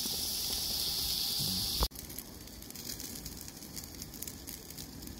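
Marinated chicken breasts sizzling on a hot grill grate: a steady hiss that cuts off suddenly about two seconds in, giving way to a quieter crackling hiss with faint ticks.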